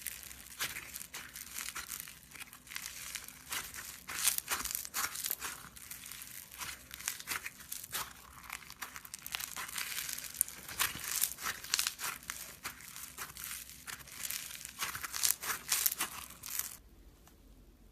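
Crunchy slime being squeezed and worked by hand: a dense run of small crackles and pops that stops about a second before the end.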